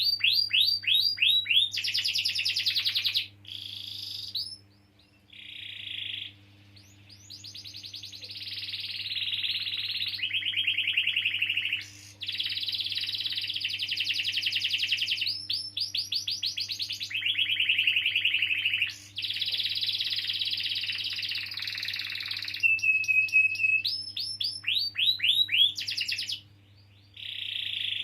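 Domestic canary singing a long, near-continuous song of fast rolling trills. Its pitch shifts from phrase to phrase, with short breaks about five seconds in and near the end, and one steady held whistle about three-quarters of the way through.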